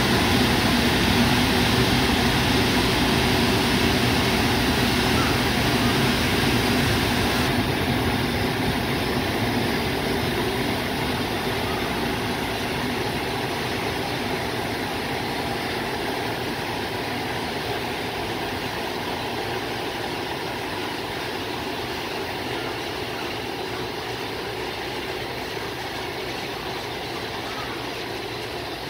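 JR Freight EF510 electric locomotive hauling a container freight train slowly past and away, a steady mechanical hum that grows gradually fainter as the locomotive draws off, with the container wagons rolling by.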